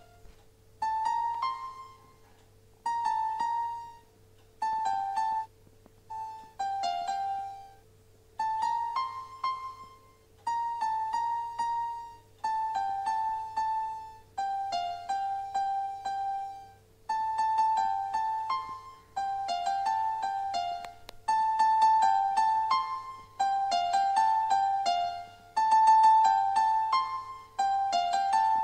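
Background music: a simple piano-like keyboard melody in short phrases of a few notes, each note fading quickly, with brief gaps between phrases and a faint steady hum underneath.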